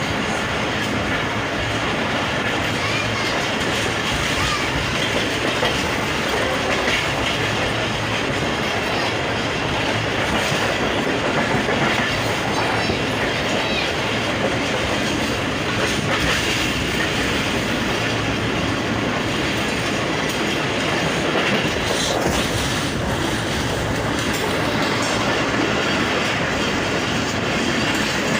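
Passenger train running at speed: a steady rumble of wheels on the rails with a few faint clicks.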